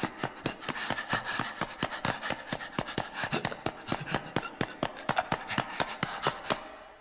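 An exhausted, wounded man's rapid, even panting, about five or six breaths a second, fading out near the end.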